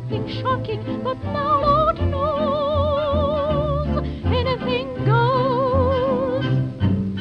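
Music: a melody of quick runs and two long held notes sung or played with a wide vibrato, over a steady low accompaniment.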